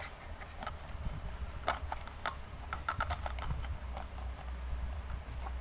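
Plastic mount accessories and their packaging being handled, giving a run of short, sharp clicks and taps, thickest in the middle, over a low steady hum.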